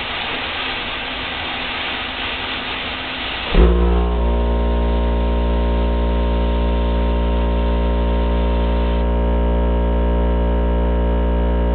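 Plasma cutter arc hissing as it cuts a piece of titanium. About three and a half seconds in, the air compressor that supplies the cutter kicks on with a sudden, louder steady droning hum that keeps running, while the cutting hiss fades out near the end.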